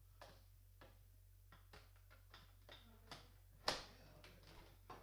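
Faint handling noise: scattered light clicks and taps, with one sharper click a little past halfway.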